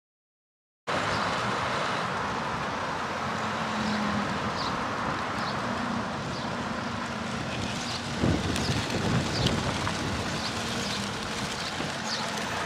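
Outdoor road ambience starting about a second in: steady wind noise on the microphone with a vehicle engine running slowly past, and a few short high chirps.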